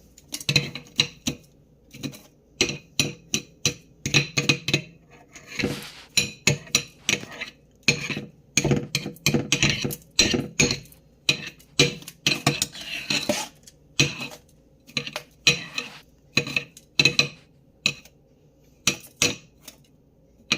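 Repeated scraping and clinking of a hard utensil or tool against something frozen hard, in short irregular bursts with brief pauses.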